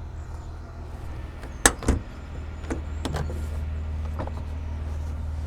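Several sharp metal clanks and clicks, two strong ones close together about a couple of seconds in and lighter ones after, from a trailer hitch ball mount being fitted to a pickup truck, over a steady low hum.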